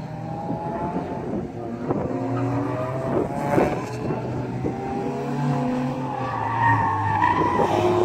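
A compact front-drive sedan (Hyundai Elantra) driven hard through a cone course: its engine revs rise and fall while the tyres squeal through the turns, the squeal growing loudest near the end.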